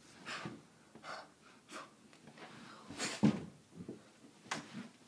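A boy performing a Northern Shaolin Tan Tui form: short breathy puffs and swishes of movement, with a heavier thump about three seconds in from a stamp or strike.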